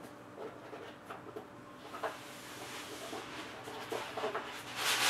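Sports trading cards being handled and set down: soft taps and short rustles, with a louder rustle near the end.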